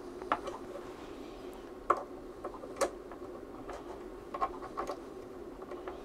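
Small metal clicks and scrapes as a 1 dB attenuator pad is screwed onto a coax connector, about five sharp ticks spaced irregularly over a faint steady hum.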